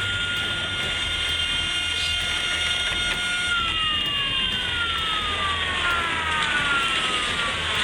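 A warning siren holding a steady tone, then winding down in a slow falling glide from about three and a half seconds in, over a steady rushing noise.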